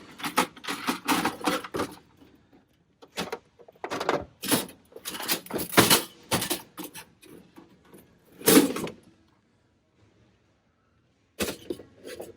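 Plastic and metal rattles and clacks of a cash register drawer being handled and searched for coins, coming in irregular bursts, with one louder clack about eight and a half seconds in and a short pause near the end.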